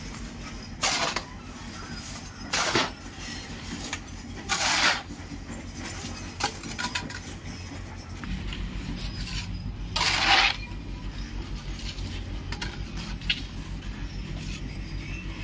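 A metal hoe and a round iron pan scraping through wet cement mix and across a concrete floor as the mix is scooped into the pan: four short loud scrapes and a few lighter clanks, over a low steady hum.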